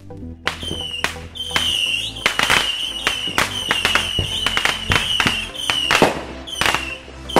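Music with a steady bass under a rapid, irregular string of firework bangs and crackles, with a high whistling tone that keeps recurring.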